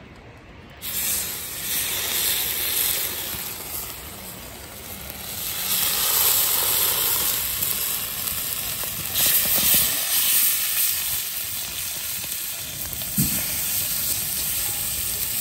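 Tandoori-marinated chicken pieces sizzling on a hot steel hotplate over a wood fire. The sizzle starts suddenly about a second in as the first pieces go down, then swells and eases as more are added.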